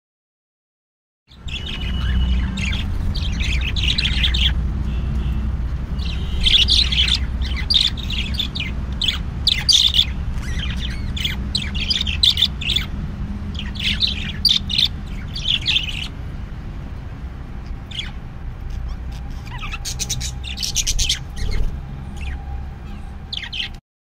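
Caged budgerigars chirping and chattering in quick, high bursts, starting a little over a second in and thinning out in the second half, over a steady low hum.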